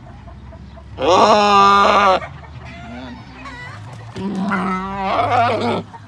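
Rooster crowing twice, each crow a loud drawn-out call of over a second: the first about a second in, the second, more wavering, near the end.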